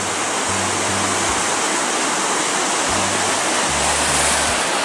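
River rapids rushing over rocks in a steady, even wash of water noise, with low held bass notes of background music underneath.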